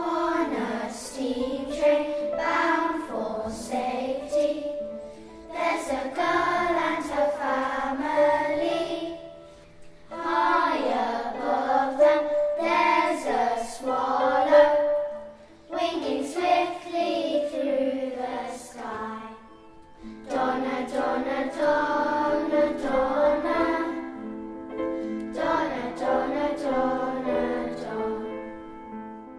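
A group of children singing together, phrases of a few seconds with short breaks, over sustained instrumental notes.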